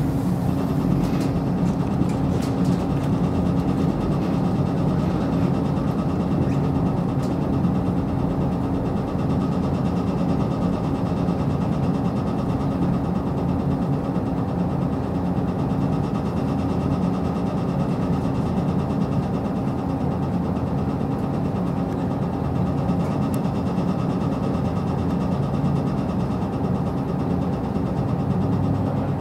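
KiHa 54 diesel railcar heard from inside the passenger cabin: a steady engine hum and rolling rail noise, with a few faint clicks about a second or two in.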